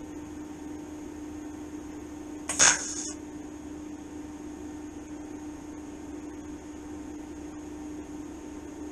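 TIG welder set as low as it goes, about 10 amps, on thin steel: a short, sharp crackle as the high-frequency start strikes the arc, then only a steady hum. At this current the arc wanders and puts too little heat into the steel to penetrate.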